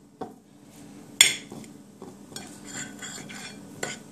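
Metal spoon clinking and scraping against a glass bowl while stirring raw prawns coated in curry powder. A loud ringing clink comes about a second in and another near the end, with softer scrapes between.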